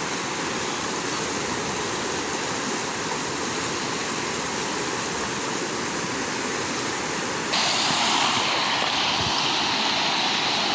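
Rushing water of a waterfall, a steady noise that jumps suddenly louder about seven and a half seconds in.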